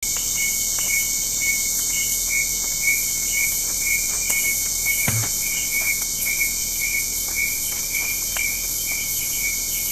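Night insect chorus of a hot summer night: dense, steady high-pitched trilling, with a lower chirp pulsing about two to three times a second. A single soft low thump about halfway through.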